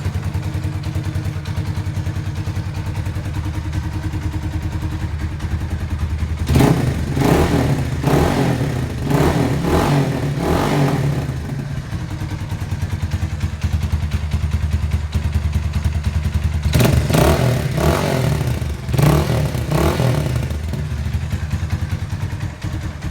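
Italika 250Z motorcycle engine idling through an aftermarket Akrapovic-style exhaust with its dB killer fitted. The throttle is blipped several times in quick succession about six seconds in, and again about seventeen seconds in, before it settles back to idle.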